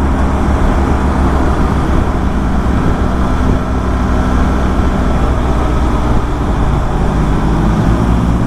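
BMW R1200 GS boxer-twin engine running steadily at highway speed, under heavy wind rush from riding.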